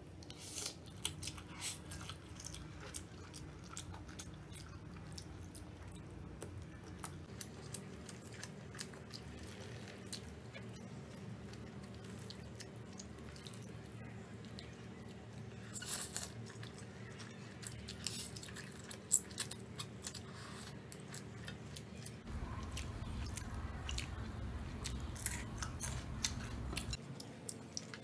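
Close-miked chewing of Samyang carbonara instant noodles, with many wet mouth clicks and smacks. A steadier low rumble rises for about five seconds late on.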